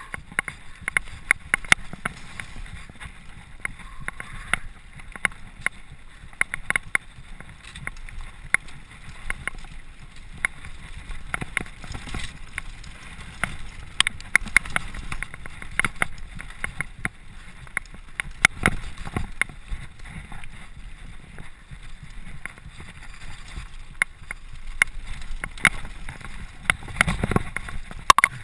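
Mountain bike rattling and clattering down a rough dirt trail at speed: many sharp, irregular knocks and clicks over a steady low rush.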